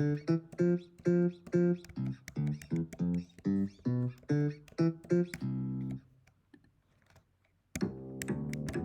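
GarageBand software bass instrument samples: a phrase of short plucked electric-bass notes, about two a second, ending on a held note about six seconds in. After a short pause an upright (double) bass sample starts plucking notes near the end.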